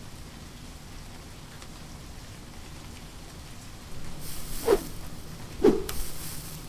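A faint steady crackling hiss, then two quick whooshes about a second apart, each with a falling tone, the second the louder.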